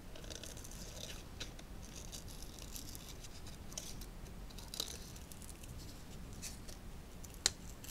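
Small scissors cutting paper: quiet, irregular snips, with one sharper snip near the end.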